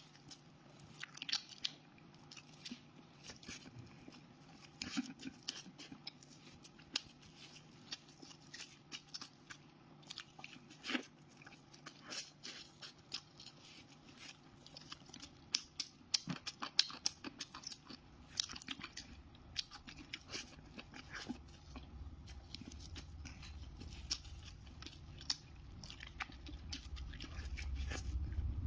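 Close-miked eating: bites and chewing with irregular crunchy clicks. A low rumble comes in about two-thirds of the way through and grows louder toward the end.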